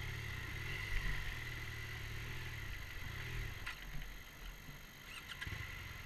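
Motorcycle engine running at low revs, fading out a little past halfway, with a few short clicks or knocks after it.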